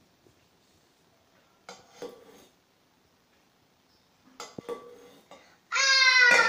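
A metal water pot clinks and knocks against the hard floor twice as it is handled, then near the end a child gives a loud, high cry that falls in pitch as it trails off: an acted cry of pain as the character is struck by an arrow.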